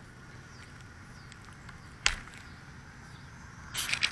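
Faint outdoor background picked up by a small drone's onboard camera lying in grass, with one sharp click about two seconds in. Near the end comes a short burst of rustling and scraping, the sound of the camera being handled or brushed.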